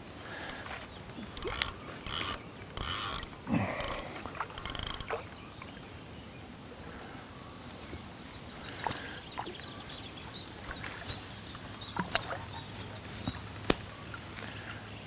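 Fishing reel ratcheting in several short bursts in the first five seconds while a hooked carp is played at close range, then only faint scattered ticks.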